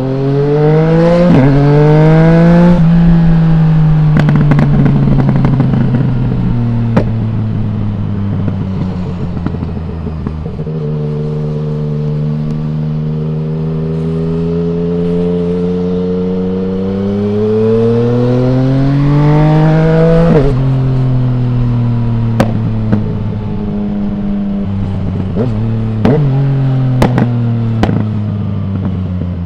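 Yamaha MT-09's three-cylinder engine through an Akrapovic full exhaust with the dB killer removed, riding under load. It pulls up in revs to a peak about 2.5 s in, drops back, and climbs slowly again to about 20 s in before the revs fall away sharply. Exhaust pops and crackles come on the overrun after each roll-off.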